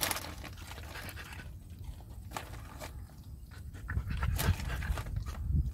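Huskies panting steadily with their mouths open. A low rumble swells from about four seconds in.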